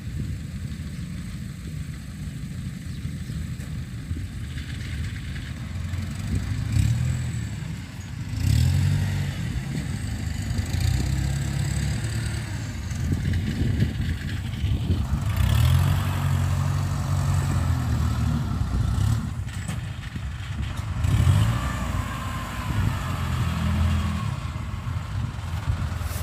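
Kubota DC93 combine harvester's diesel engine running steadily under working load, its sound swelling and easing several times.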